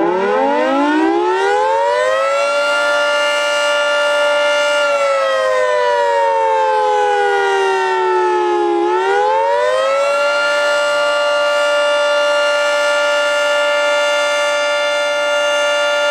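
Federal Signal 3T22A three-tone outdoor warning siren sounding the attack signal: it winds up to full pitch, holds, falls for about four seconds, then rises again and holds. A loud, healthy-sounding chord.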